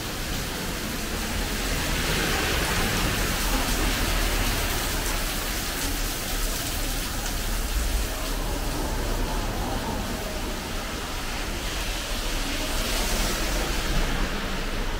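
Rain falling steadily, a dense even hiss with a low rumble underneath, swelling louder about two seconds in and again near the end.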